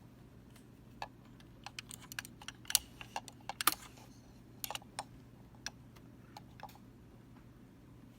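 A string of irregular sharp clicks and knocks, loudest a little under a third of the way in, thinning out near the end, over a faint steady low hum.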